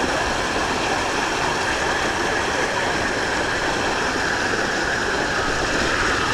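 Steady rushing of running water, an even wash of noise with no breaks.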